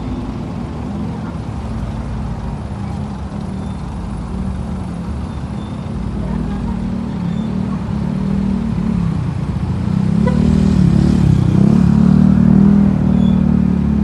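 Bus engine running and growing louder from about eight seconds in, its pitch wavering as it pulls away or passes.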